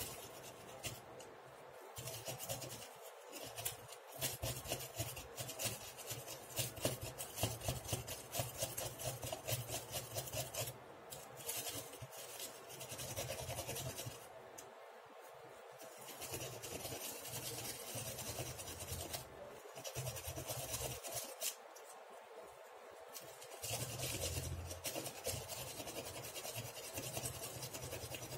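Steel wool scrubbing rust off the metal contacts of a digital bathroom scale's load cell, with rapid back-and-forth rubbing strokes in bouts and short pauses between them. The rust on these contacts is what keeps the scale from giving a reading.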